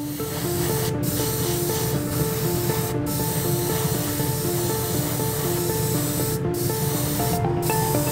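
Airbrush spraying paint onto a plastic model kit part: a steady hiss that breaks off briefly about four times. Background music with a repeating melody plays under it.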